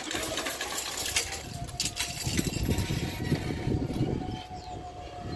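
Level crossing barrier with a hanging lattice skirt lowering, a steady tone sounding as it comes down and fading near the end, with a few sharp clacks about a second or two in.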